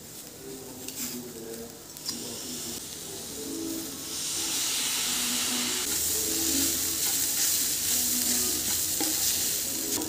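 A couple of light clicks as a lemon is pressed in a metal squeezer over the pan, then a wooden spatula stirring poha (flattened rice) in a stainless steel frying pan, with a steady sizzle that grows louder about four seconds in and holds.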